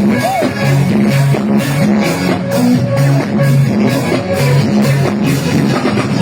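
Instrumental band music without singing: a bass line moving in short held notes under drums and guitar, at a steady beat.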